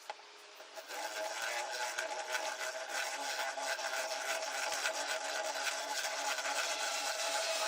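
Electric power tool starting about a second in and running steadily under load, its motor hum mixed with a dense rasping from cutting into material.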